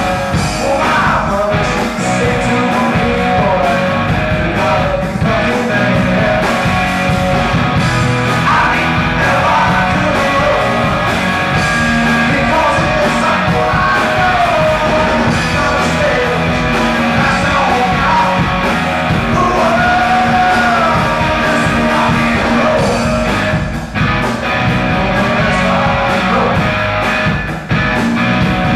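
Rock band playing live: electric guitar, bass guitar and drums, with a wavering lead line bending in pitch over the top.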